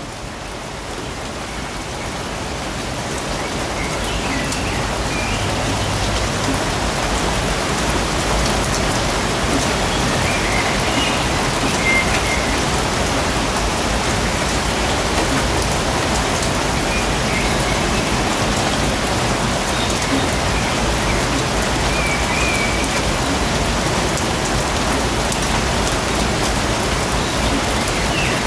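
Steady rain falling in woodland, fading in over the first few seconds and then holding even. A few short high bird chirps come through the rain now and then.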